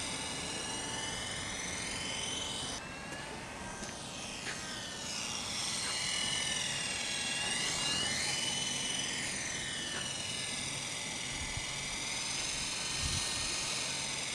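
E-sky Honey Bee electric RC helicopter in flight: a high motor and rotor whine that rises and falls in pitch as the throttle changes, dropping back briefly about three seconds in.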